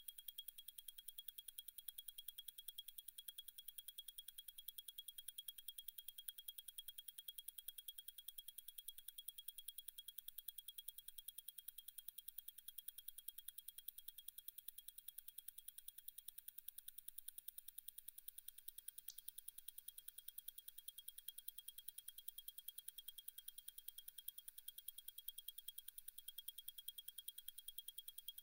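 Zenith El Primero 3600 automatic chronograph movement ticking faintly and rapidly, its balance beating at 36,000 vibrations per hour (ten ticks a second). About two-thirds of the way in, a single sharper click sounds as the chronograph is started.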